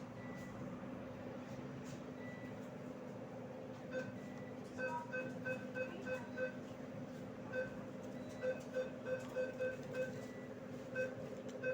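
ATM keypad beeping as keys are pressed: a run of about sixteen short, identical beeps in quick irregular groups, starting about four seconds in, over the steady hum of the machine.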